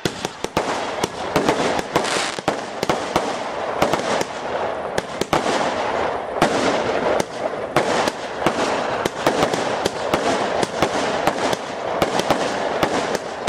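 Fireworks display going off: a dense, continuous run of sharp bangs and crackling, several reports a second over a steady hiss.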